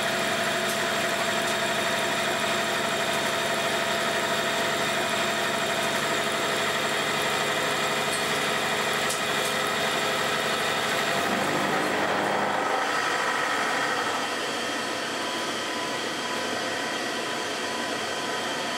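Abene VHF-3 milling machine face-milling a metal block with an indexable face mill fitted with round Seco RPHT 1204 inserts, turning at 720 rpm, 2 mm deep and feeding at 1000 mm/min under about 2.7 kW of spindle load: a steady, loud cutting noise over the spindle drive. About eleven seconds in the sound changes and then drops a little as the cutter runs off the end of the block, leaving the spindle running.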